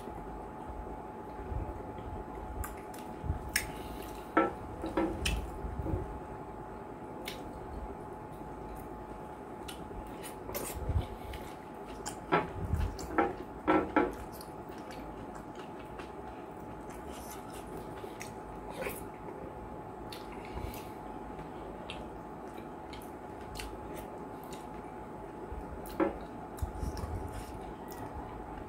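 Close-up eating sounds of banku with okra and spinach soup eaten by hand: wet squishing and smacking as fingers pinch the soft dough and scoop the soup, and chewing, in scattered bursts with a few louder clusters. A faint steady hum runs underneath.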